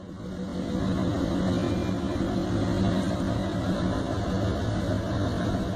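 A boat's engine running steadily, a low even drone over rushing noise, fading in over the first second.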